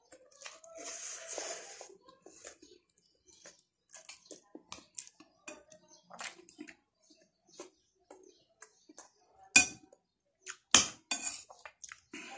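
Spoon and fork clinking and scraping against a plate, with chewing in between. Two louder, sharp clinks come about a second apart late on.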